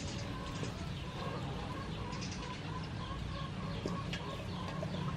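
Shredded mango being squeezed and kneaded by hand in a stainless-steel bowl, with soft wet squishing and small clicks. Birds call repeatedly, in short notes about twice a second, throughout.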